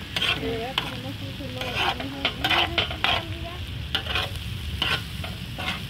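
A metal spoon scraping and stirring meat and onions in a wide steel disc pan over a wood fire, the food sizzling as it fries. The scrapes come in short strokes every half second to a second.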